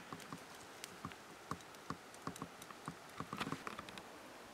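Campfire crackling: faint, irregular pops and ticks, a few a second, with a quick cluster of them about three and a half seconds in.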